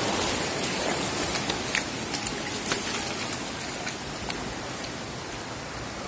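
Fast-flowing stream water rushing over rocks, a strong current, as a steady hiss that fades slightly, with a few light clicks.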